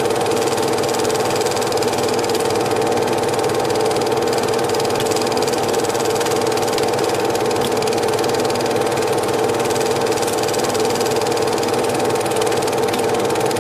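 Cine film projector running with a steady mechanical whirr from its motor and film transport.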